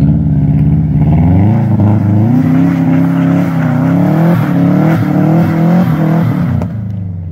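Subaru WRX's turbocharged flat-four engine revving hard while the car slides and spins its wheels in snow. The revs climb over the first second and a half, hold high with brief dips and surges, then drop off near the end.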